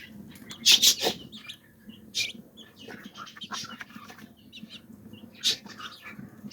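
Young Aseel chicks, about 16 days old, peeping and chirping in short high calls, with a few louder sharp scuffling noises, the loudest about a second in.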